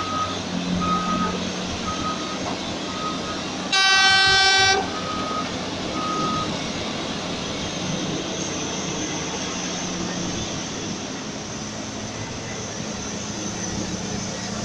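Heavy mining machines at work: a reversing alarm beeps about once every 0.7 seconds, then stops about six seconds in, and a diesel engine runs steadily throughout. A loud horn blast of about a second sounds about four seconds in.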